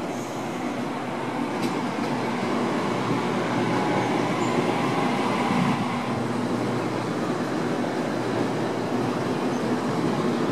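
Sydney Trains Waratah electric multiple-unit train running past along the platform: a steady rumble of wheels and running gear with a low hum, growing louder over the first few seconds and then holding steady.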